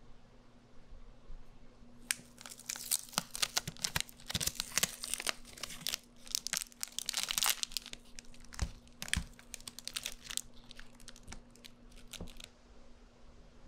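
Paper seal torn and peeled off the mouth of a plastic candy jar, then cellophane-wrapped candies rustled as one is picked out: crinkling and tearing, densest about two to eight seconds in, thinning to scattered crackles near the end.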